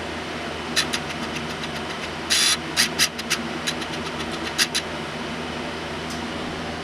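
A string of sharp metallic clicks and clinks from turbo parts and hardware being handled, densest about two seconds in, over the steady hum of a shop fan.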